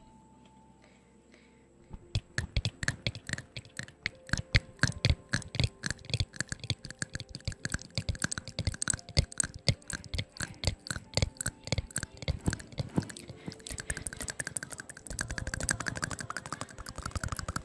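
Close-miked ASMR mouth sounds: rapid mouth clicks and pops, many a second, starting about two seconds in and thickening into a denser, more continuous run near the end.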